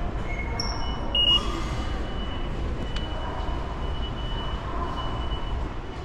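An automatic IC-card ticket gate at a subway station beeps once, a short high tone, as a card is tapped on its reader about a second in. Under it runs the steady rumble of the station concourse.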